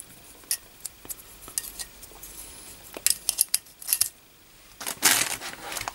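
Light clicks and taps of hard plastic as two push-down speaker terminal plates are handled and turned over, followed about five seconds in by a louder rustle of handling that lasts about a second.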